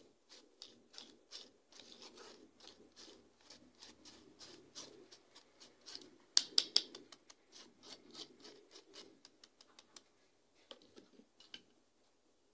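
A spoon scraping and tapping against a fine mesh sieve as cocoa powder is worked through it into a glass bowl: a run of quick, light scratches and ticks, with a cluster of sharper taps a little past halfway, dying away well before the end.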